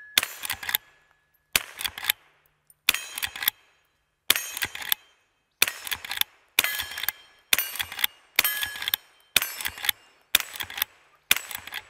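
Henry H001 Classic lever-action .22 LR rifle fired eleven times in steady succession, each shot followed by the short ring of a steel target plate being hit. The shots come about one and a half seconds apart at first and quicken to about one a second toward the end.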